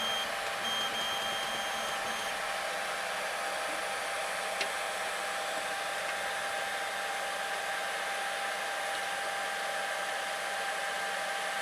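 Steady whirring of a 3D printer's cooling fans, with a thin motor whine in the first two seconds or so as the axis jogs, and a single sharp click about four and a half seconds in.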